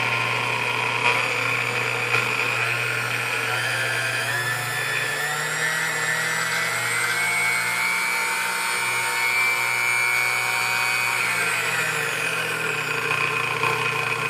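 Sunbeam Mixmaster Model 12 stand mixer's electric motor running for the first time after sitting unused for a long time. The pitch shifts a couple of times as the speed dial is turned, and the motor is switched off at the very end. It runs, but doesn't sound great.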